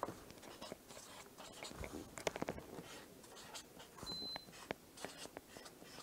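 Felt-tip marker writing on paper: faint scratchy strokes and small ticks as letters are drawn, with a brief high squeak about four seconds in.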